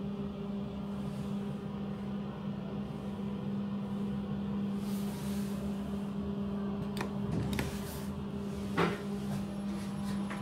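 KONE passenger elevator travelling, a steady electric hum from the drive, with a few sharp clicks and a knock about seven to nine seconds in.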